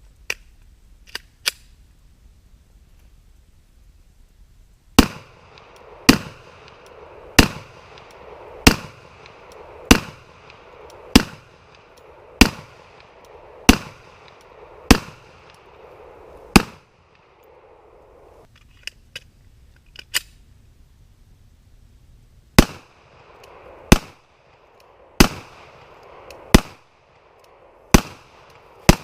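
Glock Model 40 pistol in 10mm Auto fired in slow, steady strings of single shots: about ten shots a little over a second apart, a pause of several seconds with a few faint clicks, then about six more at the same pace. Each shot is a loud, sharp crack with a short ringing tail.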